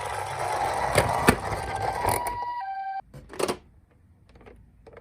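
A box of toy ambulance minicars running down a slope: a steady rattling rumble with two sharp knocks about a second in. It cuts off about three seconds in, leaving a few light clicks.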